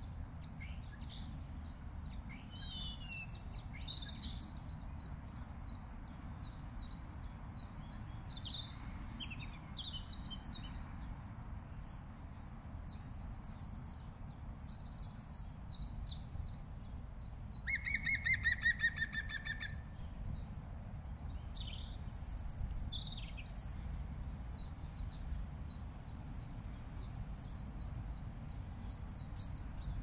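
Small birds chirping and trilling high-pitched throughout, and about 18 seconds in a loud run of about ten ringing, laughing notes, falling slightly in pitch and lasting about two seconds: the yaffle call of a green woodpecker.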